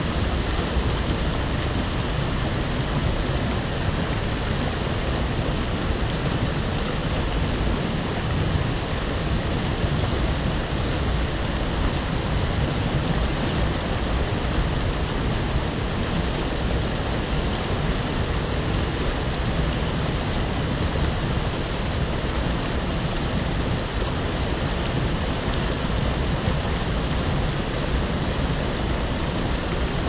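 Mountain stream rushing over rocks below a waterfall: a steady, even rush of water.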